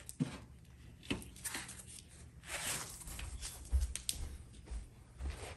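Handling noise around a plastic-wrapped electric fireplace: scattered rustling of the plastic wrap, with a few light knocks and clicks, one near the start, one about a second in and one about four seconds in.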